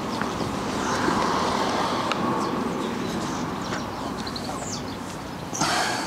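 Microfibre cloth rubbing over a wet fibreglass caravan panel: a steady swishing that swells and fades with the strokes, louder again just before the end.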